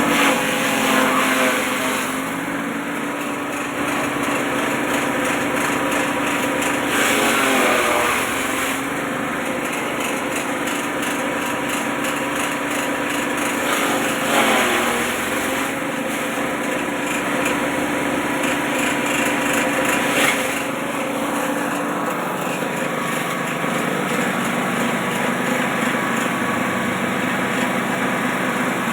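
Grass chopper (chaff cutter) machine running steadily with a small-engine hum and a chopping rattle. Its note dips briefly a few times, as if under load.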